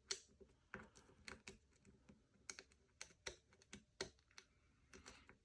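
Small sharp clicks from a lock pick and tension tool working the pins of a five-pin PO box cam lock. There are about a dozen clicks at an uneven pace, two or three a second.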